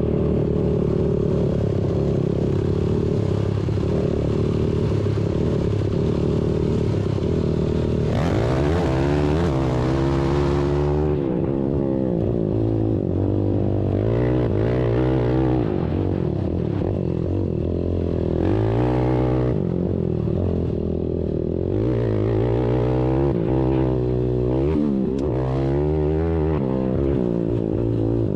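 ATV engines running at a steady pitch, then from about eight seconds in revving hard, climbing and dropping in pitch again and again as the quads accelerate and shift on the track.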